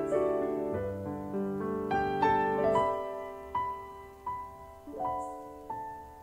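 Background piano music: single notes struck one after another and left to ring and fade, over held lower notes.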